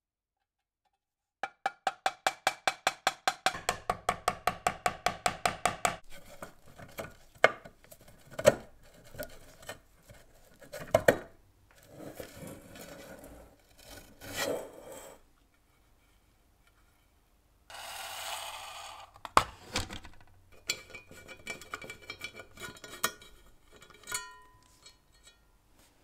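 Corroded metal parts of a giant table lighter being taken apart by hand: a fast, even run of clicks for about four seconds, then scattered knocks and clinks of metal on metal. A short scraping rub comes about two-thirds through, and small screwdriver clicks near the end.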